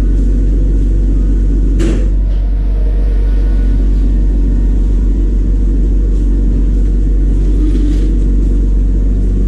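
A machine running steadily with a loud, deep, even hum, with a single sharp click about two seconds in.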